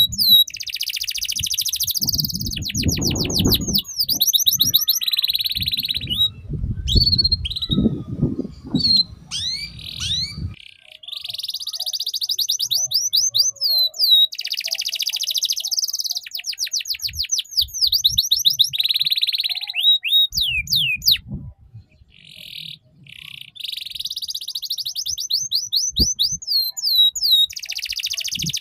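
An orange domestic canary singing a fast, chattering 'ngeriwik' song: rapid trills of quick falling notes alternating with buzzy rolled phrases, broken by short pauses.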